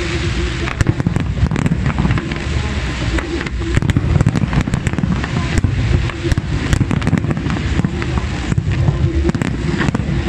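Fireworks display at full intensity: a dense, continuous barrage of aerial shells bursting with many sharp bangs and cracks, over a steady rush from ground-level fountains and comets.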